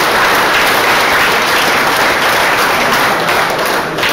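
An audience in a hall applauding steadily, dense clapping that thins out near the end.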